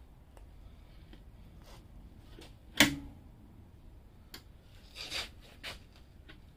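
One sharp knock about three seconds in, ringing briefly, then a few softer knocks and scrapes near the end: a detachable sissy bar being worked against its docking hardware and not yet seating.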